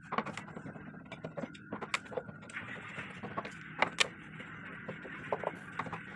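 Screwdriver working the screws out of a Polytron 32-inch LED TV's plastic back cover: irregular sharp clicks and ticks of metal on screw heads and plastic, the loudest about two and four seconds in, over a faint steady high tone.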